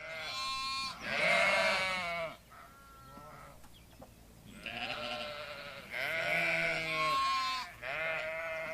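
Sheep bleating: about six quavering baas in a row, the loudest about a second in and a fainter one near the middle.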